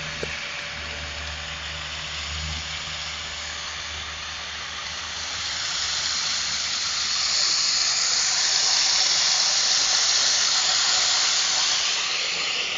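A dense chorus of swarming cicadas, a steady high hiss that swells louder about halfway through. A low hum underneath fades out after the first few seconds.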